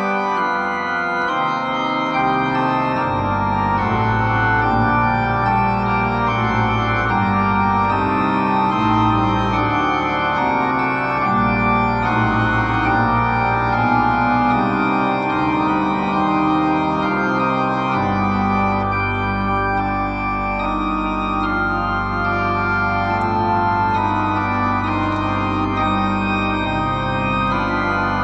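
Two-manual electronic organ playing a fugue: several interwoven melodic lines of held notes over a bass line that comes in about three seconds in. From about two-thirds of the way through, a long low bass note is held under the moving upper parts.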